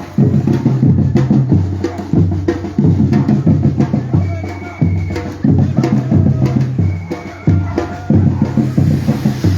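Batucada percussion group drumming: deep bass drums beat a steady pulse, with dense sharp strikes on higher drums and wood-block-like clicks. A short high held tone sounds a few times over the beat.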